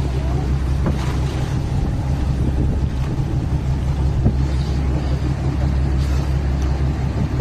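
Fishing boat's engine running steadily, a constant low drone.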